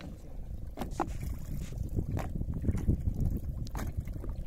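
Sea water sloshing and slapping against the side of a small fishing boat, with a low rumble that builds, several short sharp knocks or splashes, and a faint steady hum underneath.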